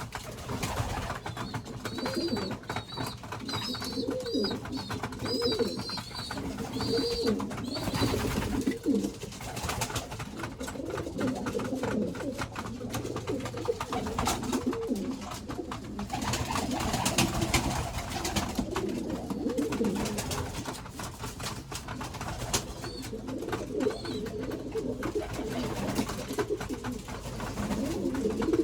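Domestic pigeons in a loft cooing continuously, several overlapping low calls. A brief run of high chirps comes in the first few seconds.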